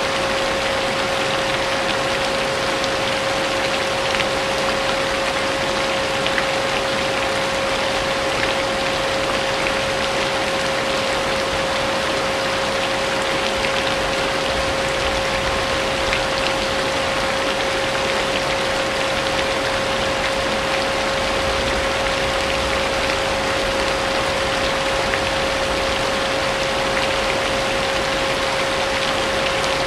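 Vacuum cleaner running steadily with a constant motor whine, mixed with a steady patter of rain.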